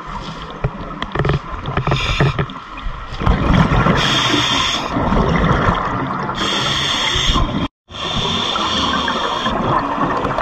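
Scuba diver breathing through a regulator underwater, heard through the camera housing: rough bubbling exhalations alternating with hissing inhalations, three hisses of about a second each from about four seconds in. The sound cuts out for a moment just before the last hiss.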